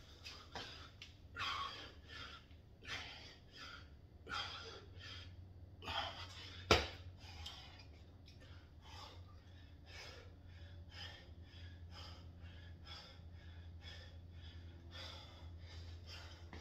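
A man's heavy, effortful breathing while he recovers from an exercise set: loud breaths about every second and a half at first, then quicker, fainter ones. A single sharp knock comes about seven seconds in, over a low steady hum.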